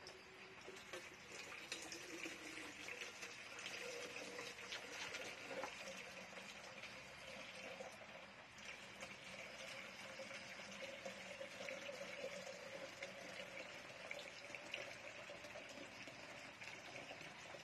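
Faint, steady rush of running water, like a tap running, with a faint hum and light scattered ticks.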